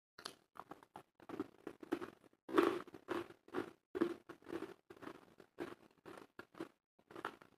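A person chewing food close to the microphone: an irregular run of short crunchy bites, loudest about two and a half seconds in.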